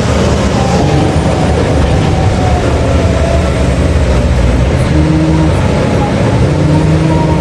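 Heavy diesel mining machinery running loud and steady, with a whine that slowly falls in pitch over the first few seconds.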